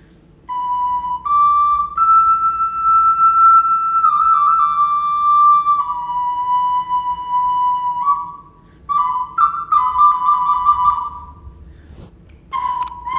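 Ceramic clay whistle, a beluga-shaped svistulka, being blown: a clear, flute-like whistling tone held on a few notes and stepping up and down between them, with two short breaks for breath.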